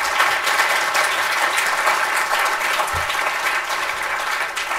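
Steady applause from a large audience, many people clapping at once.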